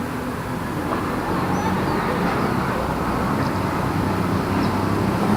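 Light city street traffic: a steady wash of tyre and engine noise, with a vehicle's engine hum growing louder from about a second and a half in as it approaches.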